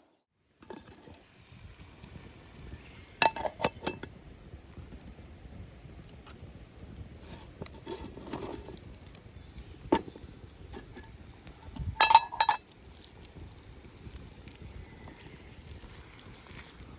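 Metal camp cookware clinking in a few short bursts: a quick run of clinks about three seconds in, a single one near the middle, and a louder double clink about twelve seconds in, over a steady low background noise.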